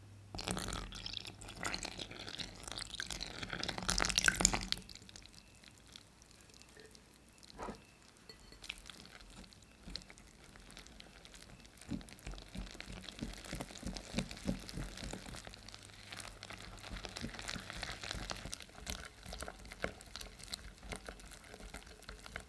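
Milk poured from a small glass jug into a glass bowl of flour and egg for the first four seconds or so. Later a wire whisk mixes the batter in the glass bowl with many quick clicks.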